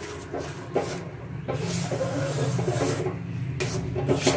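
A flat spatula scraping and stirring thick rice-flour and palm-pulp batter around a steel pan, in a series of rasping scrapes, over a low steady hum. The batter is kept moving over a low flame so that it does not stick to the bottom.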